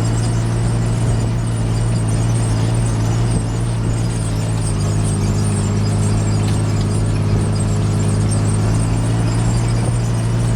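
A John Deere tractor's six-cylinder diesel engine running steadily under load, a constant low drone with a faint whine over it.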